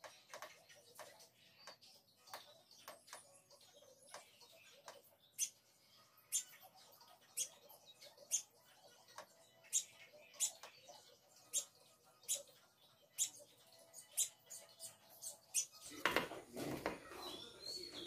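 House sparrow pecking at a car's side-mirror glass, sharp irregular taps roughly one a second: the bird is attacking its own reflection. Near the end the sound grows louder and busier.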